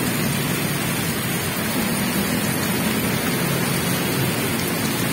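Heavy rain pouring steadily, a dense even hiss, with motorcycle engines idling faintly underneath.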